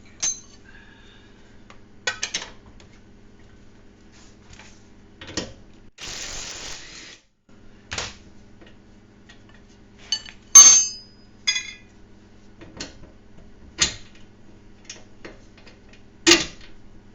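Hand tools working on the car's rear suspension: a wrench and socket clink and knock against metal as scattered sharp strikes, with a brief rasping noise about six seconds in.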